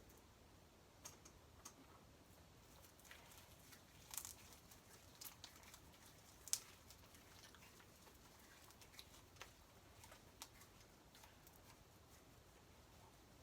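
Near silence broken by scattered faint clicks and soft sticky snaps, as homemade slime is worked by hand; the loudest snap comes about six and a half seconds in.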